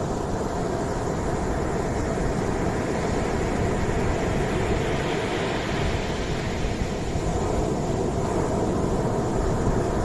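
Sea waves breaking and washing up a sandy beach: a continuous rushing surf, its hiss getting brighter around the middle as a wave breaks.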